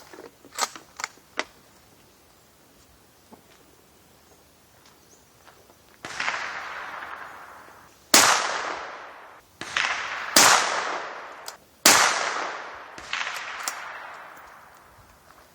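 Rifle shots from a Ruger American Ranch .223 firing subsonic cast-bullet handloads (4 grains of Trail Boss under 55-grain powder-coated bullets). Six reports, each with a long fading echo, three of them louder than the rest, after a few sharp clicks near the start.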